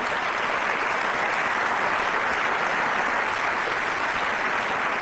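A large audience applauding, a steady, dense clapping.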